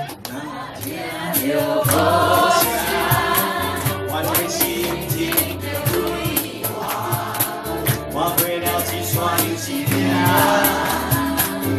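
A ukulele group singing together in chorus over a steady beat and a bass line.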